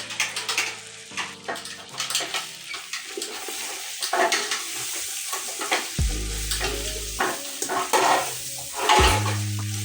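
Abacha (African salad) being stirred and mixed, with repeated scraping clicks of the utensil against the bowl. Background music with deep held bass notes comes in about six seconds in and again near the end.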